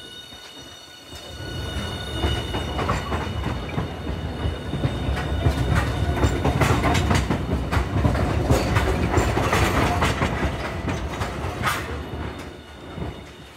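Articulated low-floor tram running past close by on street track. Its rumble builds up, holds for several seconds, then fades away, with scattered clicks and clacks from the wheels on the rails.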